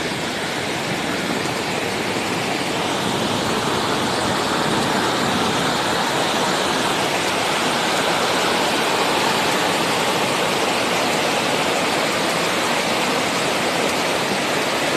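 Steady, loud rushing of water, the continuous roar-free hiss of floodwater and torrential rain with no breaks or distinct events.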